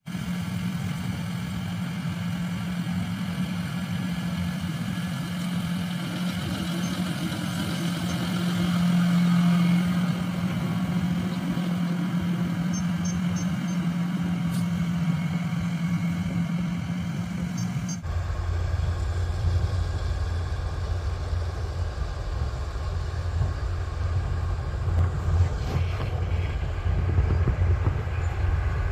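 Kubota rice combine harvester running steadily with a constant engine drone; about two-thirds of the way through the sound changes abruptly to a lower, deeper drone.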